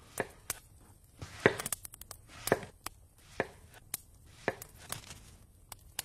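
Knife cutting raw fly agaric mushrooms into slices: about a dozen short, sharp chopping strokes at an uneven pace, roughly one every half second.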